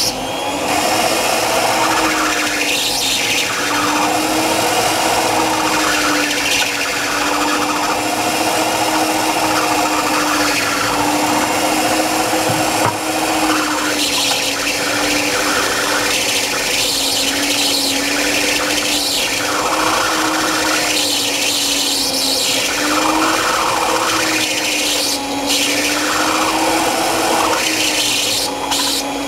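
Electric stand mixer running at high speed with a steady, slightly wavering motor hum, its beaters creaming butter and sugar in a stainless steel bowl. Every second or two a spatula scrapes the sides of the bowl.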